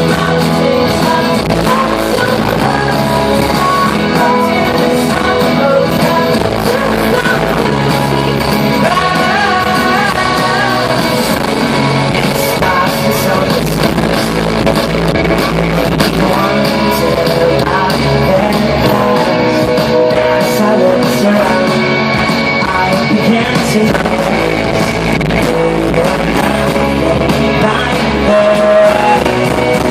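A rock band playing live, with singing over guitars, loud and continuous.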